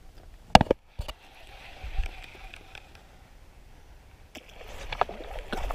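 A sharp knock about half a second in and a smaller one about a second in. Then, from about four seconds in, a bass strikes a Senko worm on the pond surface, with water splashing and sloshing as the fish is hooked.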